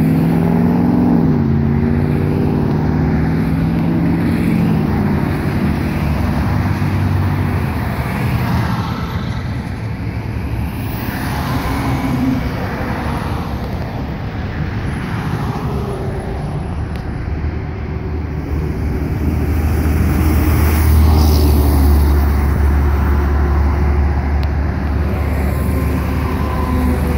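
Highway traffic passing with heavy diesel trucks among it, including a Freightliner FLD120 car hauler and a Ford L8000 dump truck. In the first few seconds an engine's pitch climbs, drops at a gear change and climbs again. A deep low rumble swells loudest about twenty seconds in.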